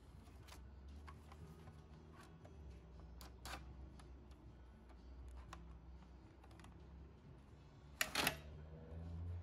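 Paper being handled and loaded into a Canon printer's plastic paper cassette: light rustles and small plastic clicks, then a louder short clatter about eight seconds in as the cassette is pushed into the printer.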